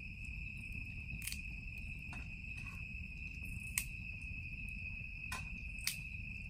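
Stick-wood campfire burning with a low steady rumble and a few sharp crackling pops, over the steady high chirring of crickets.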